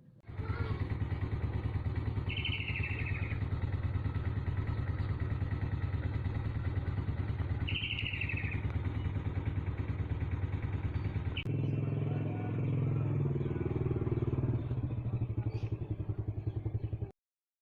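A small engine or motor running steadily with a fast, even pulse. Its sound changes abruptly about two-thirds of the way through. Two brief high chirps come a few seconds apart in the first half.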